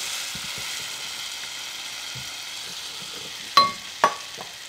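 Onions and mixed vegetables, with chicken broth and heavy cream just poured in, sizzling in a hot pan on the stove as a steady hiss. Two sharp clinks, each ringing briefly, come a little past three and a half seconds in and about half a second apart.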